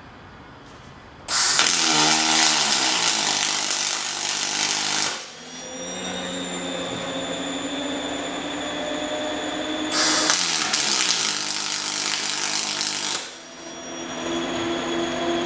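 Two tack welds from a cobot's welding torch: a loud, even crackle of the arc starting suddenly about a second in and lasting about four seconds, then a second one of about three seconds near the end. Between and after them a steadier machine hum with a few fixed tones.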